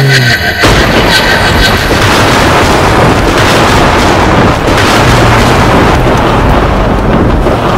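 Loud, steady rumbling roar in a cartoon soundtrack. It starts suddenly about half a second in, and a low hum shows through it briefly about halfway.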